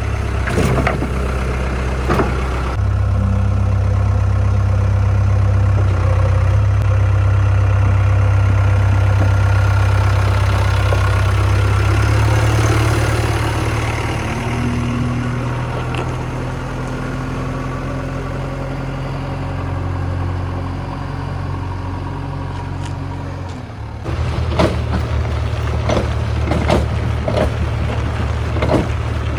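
Diesel engines of a JCB 3DX backhoe loader and a Mahindra 575 DI tractor running at work, the engine note shifting several times. In the last few seconds, a string of sharp knocks sounds over the engines.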